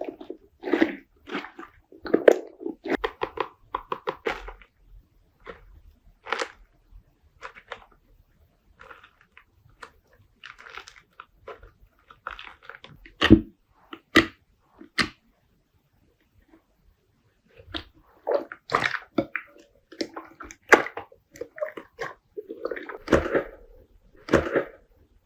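Slime being squeezed and poked by hand: irregular wet squishes and crackles, with a few sharp pops past the middle and a brief pause after them.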